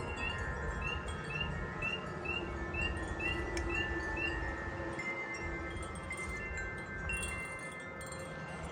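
Wind chimes ringing with long, overlapping tones, while a spring peeper calls a quick series of short rising peeps, two or three a second, that stop about four seconds in.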